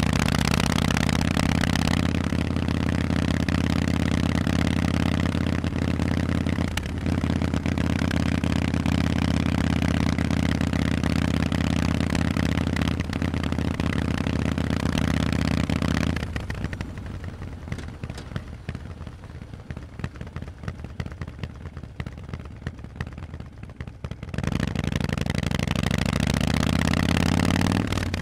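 Harley-Davidson Forty-Eight's 1200 cc V-twin running loud through Vance & Hines exhausts while riding, with a brief dip about seven seconds in. Past the middle the engine note drops back and quietens for several seconds, then builds up again near the end.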